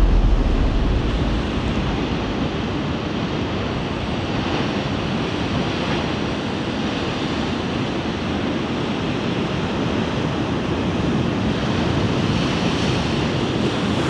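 Heavy storm surf crashing against a stone harbour sea wall and rocks: a continuous rush of breaking waves and spray. It swells briefly about four and a half seconds in and again near the end.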